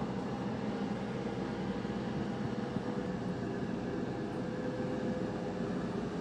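Countertop cooking appliance running with a steady fan hum and a faint constant tone.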